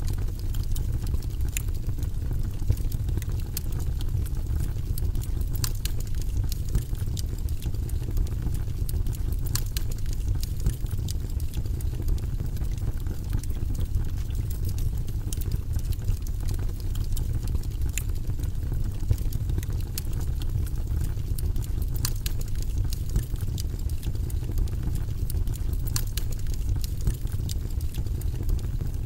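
Wood fire burning in a fireplace: a steady low rumble of the flames with scattered sharp crackles and pops from the burning logs, a few seconds apart.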